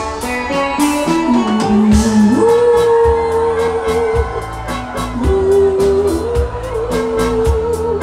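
A woman's voice singing live through a microphone, holding long notes, over keyboard backing with a steady beat.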